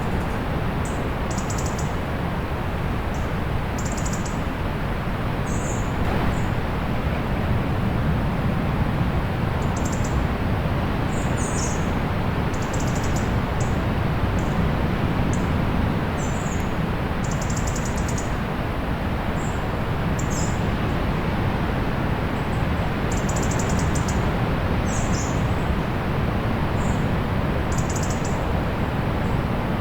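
Steady low rush of distant sea surf, with small birds chirping in short, high calls scattered every second or two.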